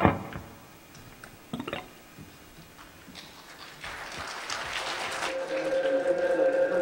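A recorded BART train sample played through the PA: a rushing noise swells up over a few seconds, then a steady whine on two pitches comes in and grows louder. A thump at the very start and a light tap about a second and a half in.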